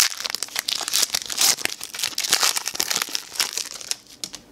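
Foil wrapper of a Pokémon trading-card booster pack crinkling as it is torn open, a dense run of crackles that dies away near the end.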